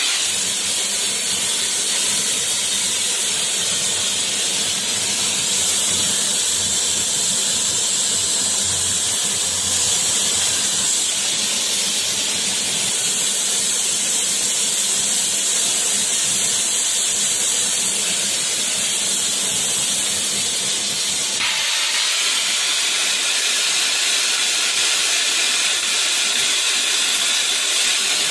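Metal spray gun spraying stainless steel onto a shaft, a loud steady hiss of gas and air; the hiss changes slightly in tone about two-thirds of the way through.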